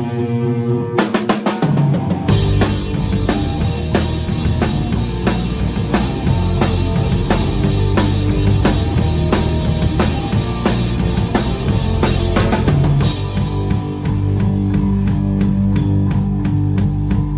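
Rock band playing: a held guitar chord, a quick run of drum hits about a second in, then the full band of drum kit, bass and electric guitar with a steady beat.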